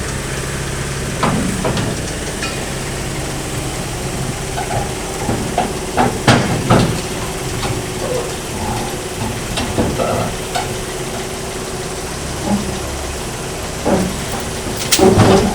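Hitachi 138 excavator's diesel engine running steadily under load, with several sharp metal clanks and knocks spread through the clip as the machine is loaded onto a truck.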